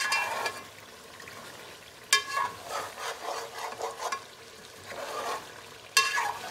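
Chicken and masala being stirred and scraped in a large aluminium pot as they fry and sizzle. The spoon knocks against the metal pot three times, at the start, about two seconds in and near the end, each knock ringing briefly.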